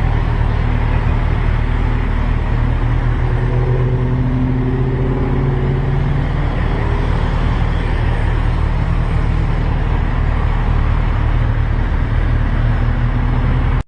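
Motorcycle engine running steadily under way, with a dense rushing noise over it. The pitch lifts slightly for a couple of seconds near the middle.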